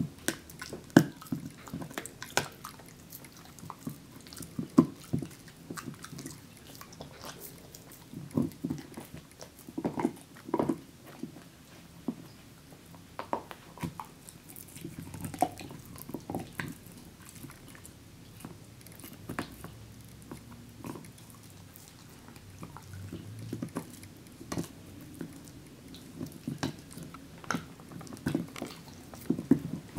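Mixed-breed dog gnawing a dental chew bone: irregular clicks and knocks of its teeth on the bone, coming in uneven clusters with short pauses.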